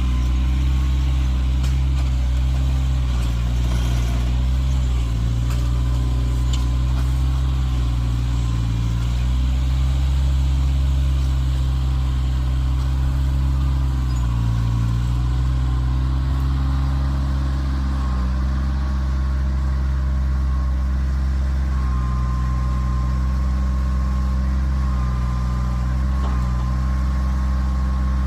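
Kioti tractor's diesel engine running steadily while working a log with the grapple, its note dipping briefly a few times under load, with a thin steady whine above it.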